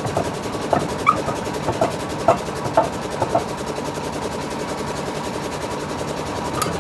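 An engine idling steadily, with a handful of short clinks in the first half.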